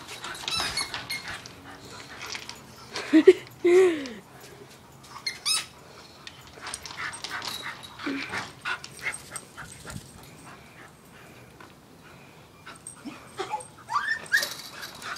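A dog whining in a few short pitched cries: a pair about three seconds in and a rising whine near the end.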